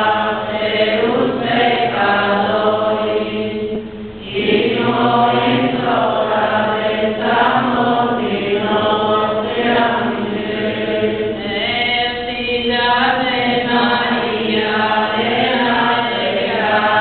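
A church congregation singing together in unison, a slow chant-like hymn with long held notes and a brief pause between phrases about four seconds in.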